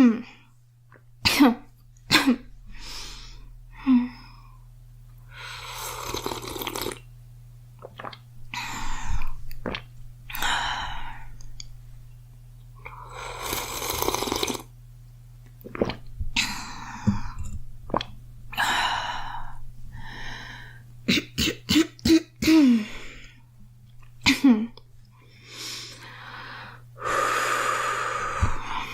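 A girl coughing in repeated fits, some single sharp coughs and some quick clusters of three or four, with long noisy breaths drawn between them.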